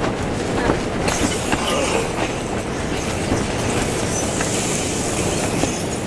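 Strong wind buffeting the tent, a dense steady rumble with a few light clicks and flaps of the fabric.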